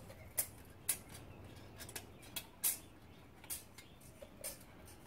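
Feeler gauge blade scraping and clicking as it is slid between a steel straight edge and the cast-iron deck of a Toyota 3S-FE engine block, checking the deck for warpage. Irregular light clicks and scrapes, a few sharper than the rest.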